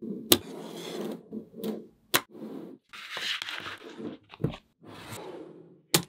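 Small magnetic balls scraping and rolling against each other as they are pushed into place, with a few sharp clicks as balls snap together.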